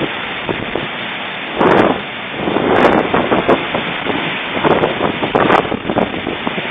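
Thunderstorm: heavy rain hissing steadily, with gusts of wind that swell and buffet the microphone several times.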